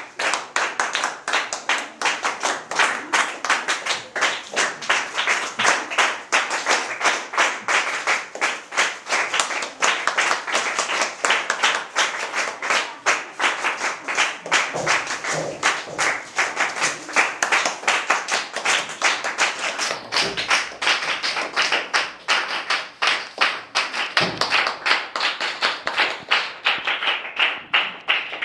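A group of people clapping together in a steady, even rhythm, about three to four claps a second.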